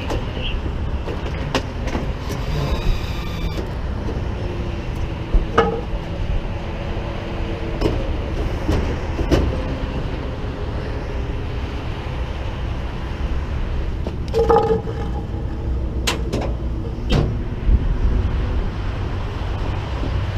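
Flatbed tow truck's engine running with a steady low rumble, with a few sharp metal clanks and clicks from work on the truck's deck.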